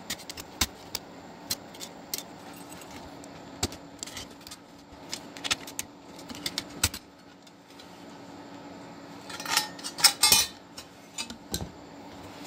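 Metal clicks, taps and rattles of a floppy disk drive's sheet-metal frame and parts being pried at and handled with a screwdriver, with a louder burst of clattering about ten seconds in.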